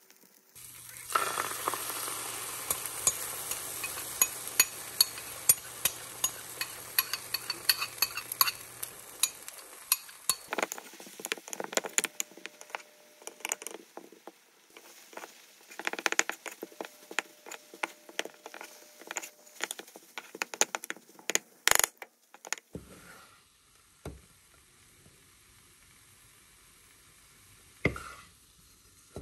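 Food sizzling in a frying pan while a spatula stirs and scrapes, with many small clicks against the pan. The sizzle drops away about ten seconds in, leaving scattered scrapes and clinks of the utensil on the pan, one sharp clack a little past twenty seconds, and a few faint knocks near the end.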